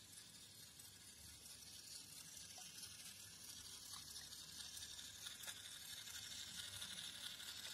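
Faint whirring of a battery-powered toy locomotive's small motor and its wheels rolling on wooden track, growing a little louder as the train comes closer, with a few light ticks.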